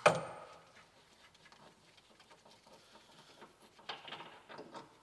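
A sharp clank with a short ring-out right at the start, from a spanner working the dust cover off the upper brake accumulator under a Routemaster bus. This is followed by a few light clicks and handling rattles near the end.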